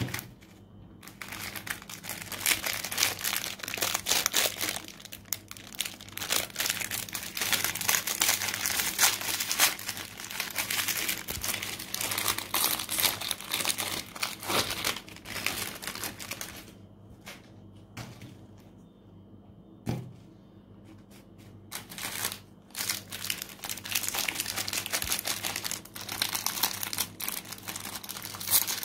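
Foil cookie wrappers crinkling and tearing as they are peeled open by hand. The crackling comes in two long stretches separated by a quieter pause of a few seconds, in which there are a few sharp clicks.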